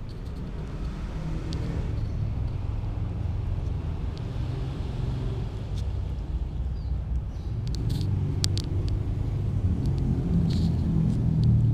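A low, steady rumble that slowly grows louder, with a few scattered sharp clicks.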